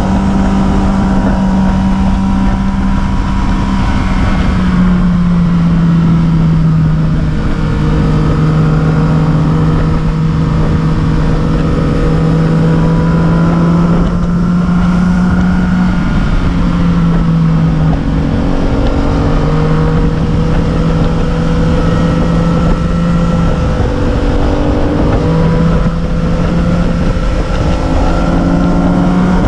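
A vehicle engine droning steadily under way, its pitch dipping slightly and recovering several times, over road and wind rush.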